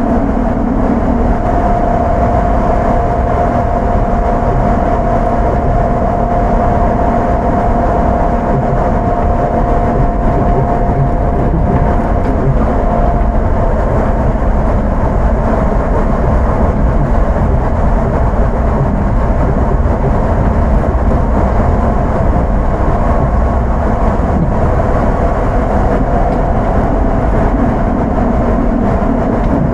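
Running sound of an Astram Line 6000-series rubber-tyred people mover, heard inside the car: a steady rumble of the tyres on the guideway with the steady whine of its thyristor armature-chopper controller. The whine fades about twelve seconds in and comes back near the end.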